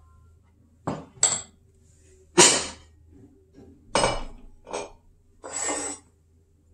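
Kitchen dishes knocking and clinking on the counter as a glass mixing bowl and ceramic dishes are moved about: about six separate clinks and knocks, the last one drawn out briefly.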